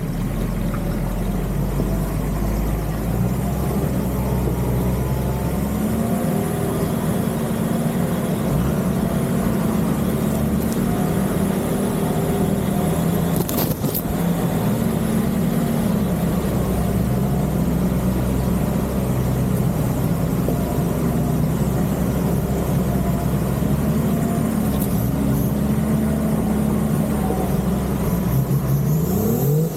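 Off-road 4x4 engine, likely the Nissan Patrol Y61, revving up and down over and over under load as it crawls through the terrain, with a sharp knock about fourteen seconds in.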